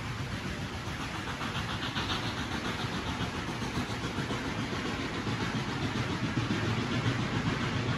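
Train running with a steady low rumble that grows gradually louder toward the end.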